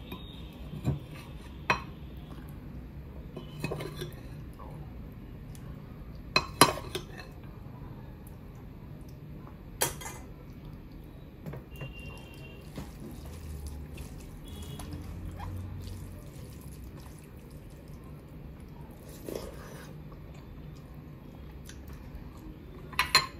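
A metal spoon clinking against a ceramic bowl and plate as chicken curry is served: a handful of sharp clinks scattered through, the loudest about six seconds in, with soft sounds of eating rice and curry by hand between them.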